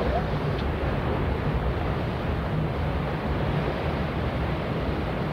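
Cross-channel ferry departing port: a steady low rumble with a continuous wash of churning water.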